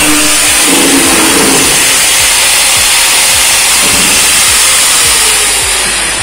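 Electric power tool running hard on stainless steel sheet, a loud steady grinding whine. It eases off near the end.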